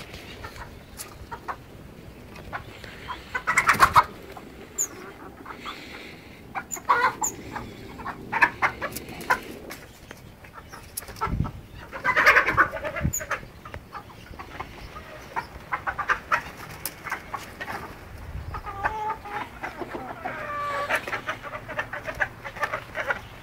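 Backyard chickens clucking and calling while a rooster chases the hens, with louder outbursts about 4 and 12 seconds in and rising and falling calls near the end. Short taps and clicks run through it.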